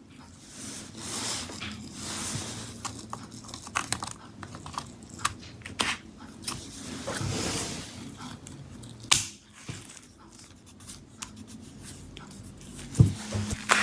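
Small clicks, taps and rustling of hands working inside an open laptop as a DDR5 SO-DIMM RAM stick is fitted back into its slot. A sharper click comes near the end.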